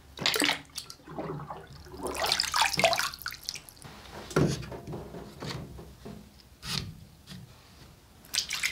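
A green sharpening stone is dipped and swished in a tray of water, with splashing and dripping. The wet stone is then set down on a metal stone holder, with a couple of sharp knocks about halfway through.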